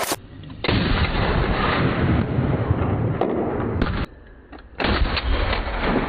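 Small-arms gunfire in two long stretches of rapid, closely spaced shots, the second starting about a second after the first stops.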